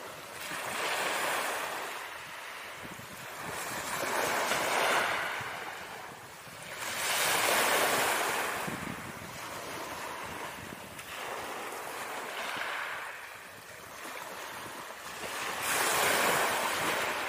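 Ocean surf: waves breaking and washing in, swelling and fading about five times.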